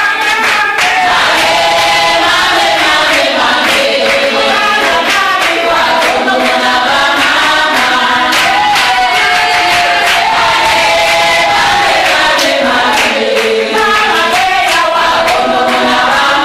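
A group of voices singing a festive song together, with sharp, evenly spaced beats running under the singing.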